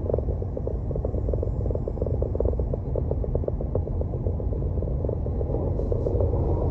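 A car on the move: a steady low rumble of road and engine noise, with a fast, irregular fluttering running through it.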